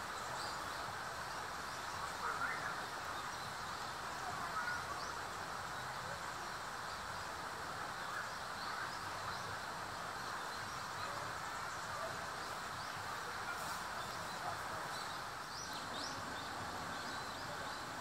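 Steady outdoor background noise with faint, scattered high bird chirps, a few in quick succession near the end.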